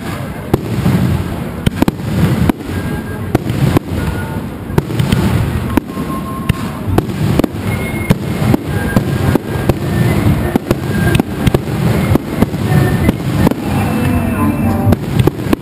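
Fireworks display: aerial shells bursting overhead in a steady string of sharp, loud bangs over a continuous low rumble.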